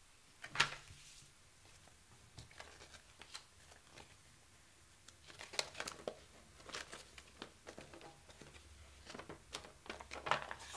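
Cardboard and paper packaging of a trading-card starter deck being handled: a sharp tap about half a second in, then scattered rustling and crinkling as a folded paper instruction sheet is opened out.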